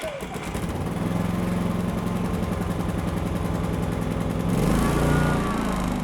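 Pulsar G450RN inverter generator's small engine running just after an electric start, with its automatic choke working on the fresh cold start. Its note is steady, then shifts and wavers about four and a half seconds in.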